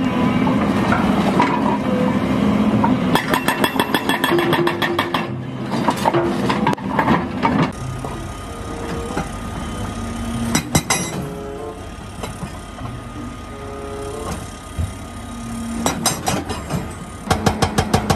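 Hydraulic breakers on large crawler excavators hammering rock in runs of rapid, evenly spaced blows, over the machines' running diesel engines.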